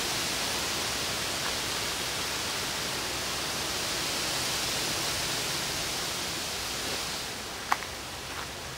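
Steady hiss that thins out a little near the end, with one sharp click about three-quarters of the way through.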